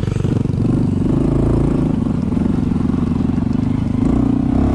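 Honda CT125 Hunter Cub's single-cylinder engine running under way along a dirt trail, its note rising and falling with the throttle, with a second trail motorcycle riding just ahead.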